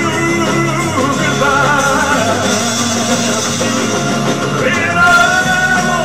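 Music: a man singing a slow ballad into a microphone over an instrumental backing track, with long held notes.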